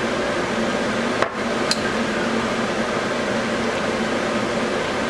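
A small glass prep bowl knocking sharply about a second in, then clinking lightly just after, as it is handled over a stainless-steel stockpot, over a steady hiss and hum.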